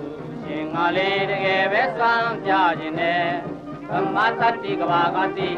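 Intro music with a chanting vocal line whose pitch wavers and slides, over a steady low drone.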